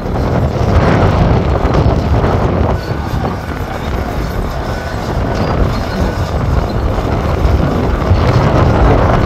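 Heavy diesel earthmoving machinery working gravel: a loud, dense, steady rumble of engine and grinding.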